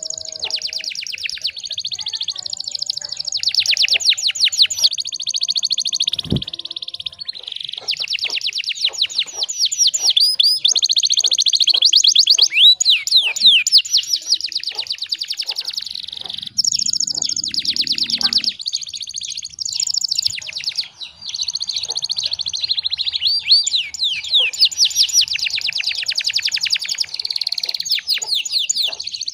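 Canary singing a long, unbroken song of fast trills and rolls: rapid repeated high notes that change pattern every second or two, with only brief pauses.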